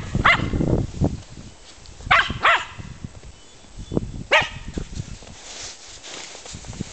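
German Spitz (Mittelspitz) dogs barking in play: four short, sharp barks, one at the start, two close together about two seconds in, and one more a little past four seconds.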